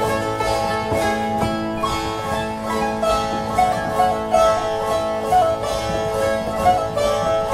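Langeleiks, Norwegian drone zithers, played together in a springar dance tune: a melody picked on the fretted string over steadily ringing drone strings, with an even strummed rhythm.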